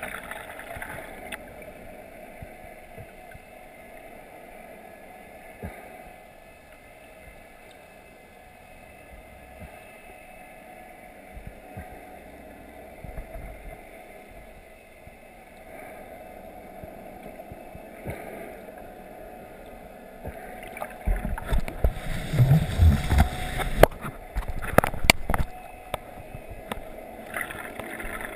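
Underwater ambience recorded inside a GoPro's waterproof housing: a steady low hiss of the sea. About three-quarters of the way through comes a few seconds of loud low thumps and knocks.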